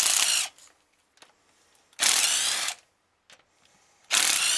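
A hand-held power tool, such as a cordless ratchet or impact driver, runs in three short bursts about two seconds apart, each under a second long, backing out bolts on the engine. Its whine rises in pitch within each burst.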